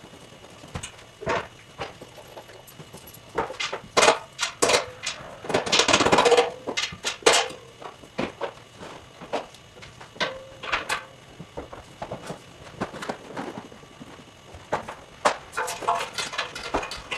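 Irregular knocks, clicks and clatter of stage lighting gear being handled and mounted on a truss totem, with a denser rattle about six seconds in.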